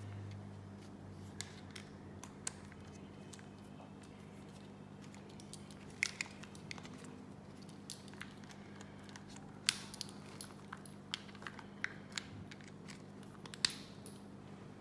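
Irregular light clicks and taps from a rugged phone and a wired earphone plug and cable being handled, the sharpest about six, ten and thirteen and a half seconds in, over a low steady hum.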